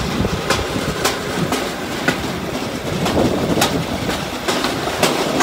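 Rail bike's steel wheels rolling along the track with a steady rumble, clicking sharply over the rail joints about twice a second.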